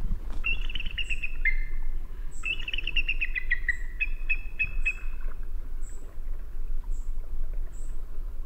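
Bald eagle calling: three runs of quick, high chittering notes that step down in pitch, mixed with short high chirps about once a second, over a low steady rumble. The chittering stops about five seconds in, while the short chirps carry on.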